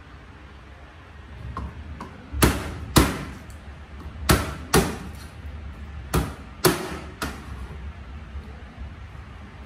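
Knife chopping through pieces of fried chicken onto a cutting board: about seven sharp chops, mostly in pairs about half a second apart.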